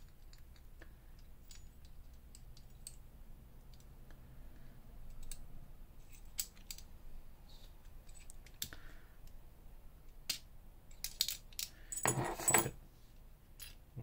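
Small metallic clicks and clinks of a 7-lever safe lock being taken apart by hand, its levers and case parts knocking together, with a louder burst of metal clattering about twelve seconds in.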